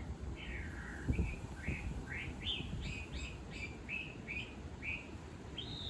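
Chinese hwamei (laughingthrush) singing: one long falling whistle, then a quick run of short, varied whistled phrases, ending on a higher rising note. A low rumble runs underneath, with a thump about a second in.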